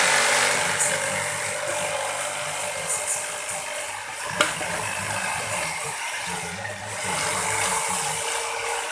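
Electric jigsaw running steadily as it cuts a circular speaker-driver hole in an MDF board, with one sharp click a little over four seconds in.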